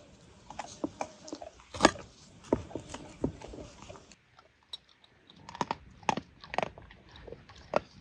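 A knife working garlic cloves on a wooden board: small clicks and crackles of papery skin. About four seconds in, a dog chewing, with irregular crunches.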